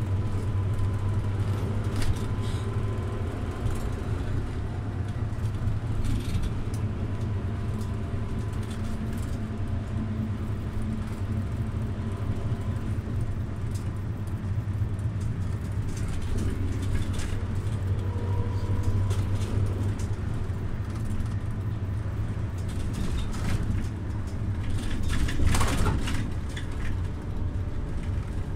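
Scania OmniLink city bus heard from inside: the steady low drone of its rear-mounted diesel engine, with scattered rattles and knocks, and a louder rush about 25 seconds in.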